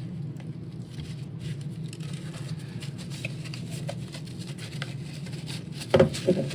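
Light clicking and tapping of the Roomba's plastic parts being handled and picked at, over a steady low hum, with a few louder knocks near the end.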